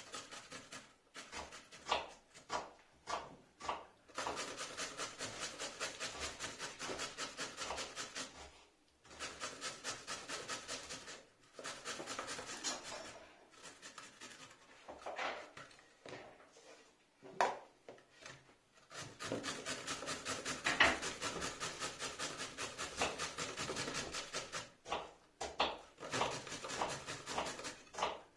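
Raw pumpkin being grated on a hand grater: runs of quick, even rasping strokes, broken by short pauses.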